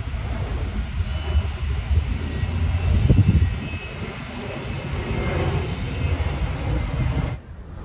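Airbus A320-200 airliner's jet engines running: a steady rumble with a faint high whine, swelling louder about three seconds in, then cutting off abruptly near the end.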